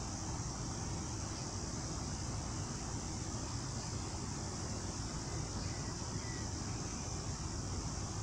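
Steady high-pitched chorus of night insects, over a steady low rumble.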